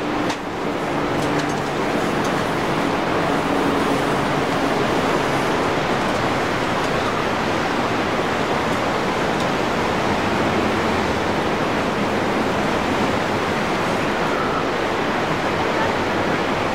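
Steady rushing noise of surf breaking along a beach, with a faint low hum in the first few seconds.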